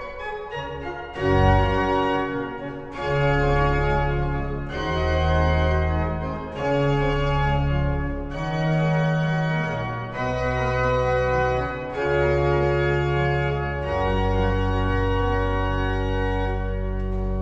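Pipe organ playing slow sustained chords over deep held pedal bass notes, the harmony changing about every two seconds, with a longer held chord near the end.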